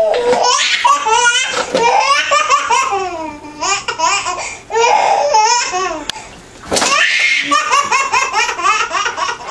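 Baby laughing in runs of giggles and belly laughs, broken by two short pauses.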